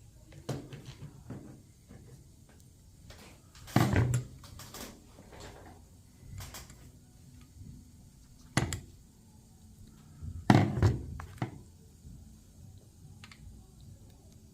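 Scattered knocks and clunks of tools and small carburetor parts handled on a workbench during disassembly, the loudest about four, eight and a half and ten and a half seconds in.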